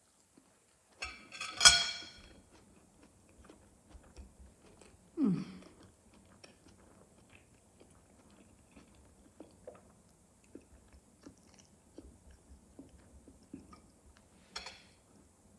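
Close-miked eating of fresh tomato and cucumber: a loud crisp crunch about a second and a half in, then soft wet chewing clicks, with another crunchy bite near the end.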